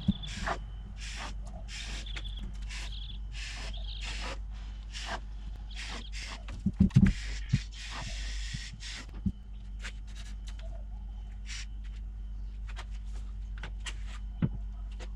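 A can of expanding foam filler hissing in short repeated squirts, with a longer spray and a few knocks about halfway. The squirts thin out later over a steady low hum.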